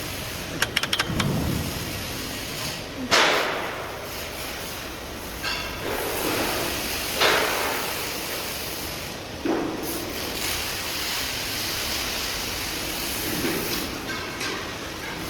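Steady machinery noise on a scaffolding factory floor, broken by several loud bangs and knocks, the strongest about three and seven seconds in.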